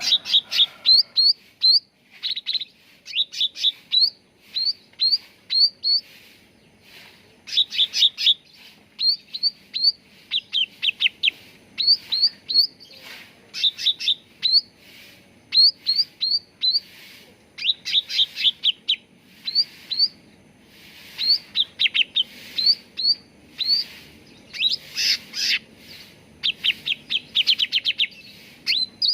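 Cucak ranting, a leafbird, singing: quick runs of three to six short, sharply up-slurred chirps, repeated with brief pauses between runs.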